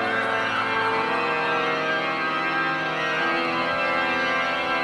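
Eerie organ music from a spooky sound-effects cassette: long held, overlapping notes that shift slowly from one chord to the next.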